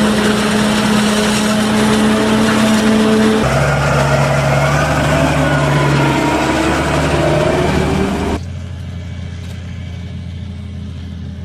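Diesel engines of a Claas Jaguar forage harvester and a New Holland tractor running steadily while chopping maize. About three seconds in it changes to the New Holland TVT195 tractor pulling a loaded Pöttinger Jumbo forage wagon past, its engine pitch drifting up and down. From about eight seconds a quieter, low, steady engine drone.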